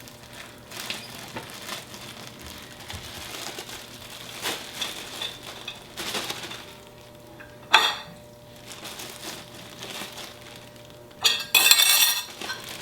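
Soaked elderberries being put by hand into a plastic zip-top bag, with soft rustling and light clinks of kitchenware. There is a sharp knock about eight seconds in and a louder rustle lasting about a second near the end.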